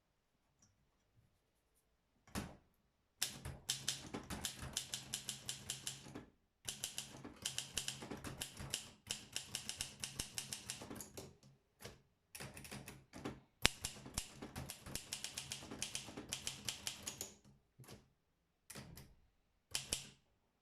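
Olympia SM7 manual portable typewriter being typed on: quick runs of key strikes, several a second, in bursts broken by short pauses, with a few separate strikes near the end.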